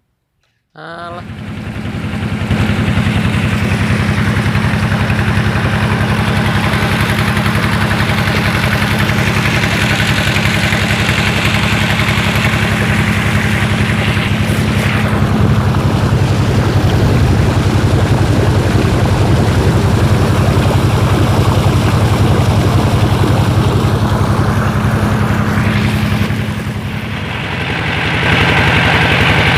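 An engine starts up about a second in and runs steadily close by, with a brief dip in level near the end.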